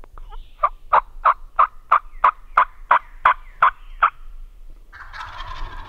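Wild turkey calling: a rhythmic series of about a dozen short, evenly spaced yelps, about three a second, then a quieter, rattling call that starts near the end.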